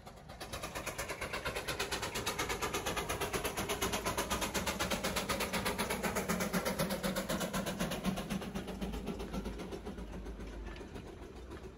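Darjeeling Himalayan Railway B Class narrow-gauge steam locomotive working past, hauling its carriages, its exhaust beating in a rapid, even rhythm. It grows louder toward the middle and fades near the end as the train moves away.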